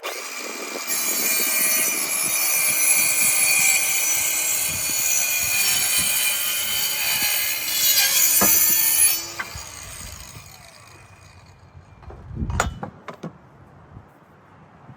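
RYOBI 18V ONE+ 4-1/2" cordless compact circular saw running and cutting through a 2x4 with a high-pitched whine for about nine seconds, then winding down after release. A single thump about three seconds later.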